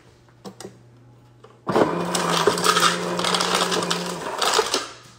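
A small electric motor appliance runs with a loud whirring hum for about three seconds, starting about a second and a half in and cutting out near the end. A few faint clicks come before it.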